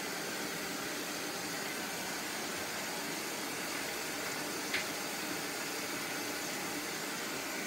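Steady, even hiss with one faint short tick about five seconds in.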